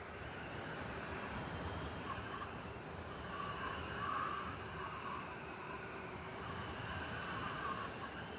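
City blizzard ambience: steady wind noise over a low traffic-like rumble, with brighter gusts swelling and fading a few times.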